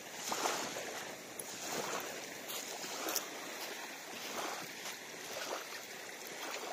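Small waves lapping and washing at the shoreline, a steady, uneven slosh of shallow water.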